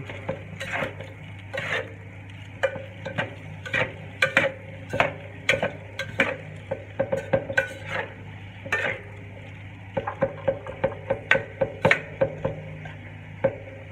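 Slotted metal spatula scraping and clinking against a metal pan while stirring and tossing fried rice with mixed vegetables. The strokes are irregular, about one or two a second, and come faster near the end, over a steady low hum.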